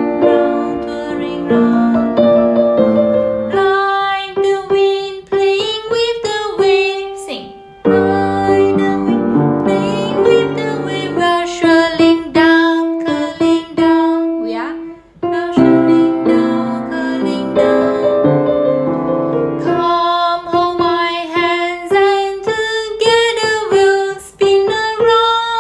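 A woman singing a children's song while accompanying herself on a grand piano.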